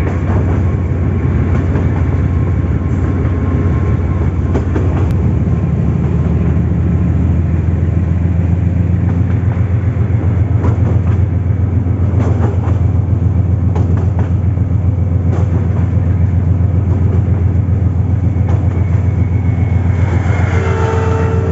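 Running noise of a moving train heard from the side of its wagon: a steady, loud low rumble of wheels on the track. Near the end a short steady tone with several notes comes in as a passing train draws alongside.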